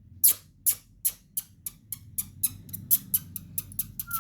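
A parrot making a run of sharp clicks, about twenty in all, that come faster and faster, then a short whistle rising in pitch at the very end.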